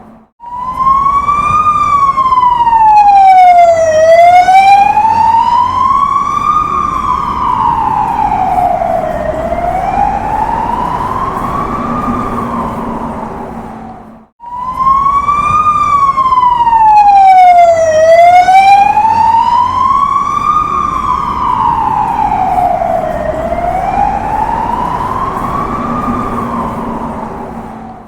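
Police car siren in a slow wail, its pitch sliding up and down about once every five seconds over low street noise. It swells loud and then fades as it passes, drops out briefly about halfway through, and the same pass starts over.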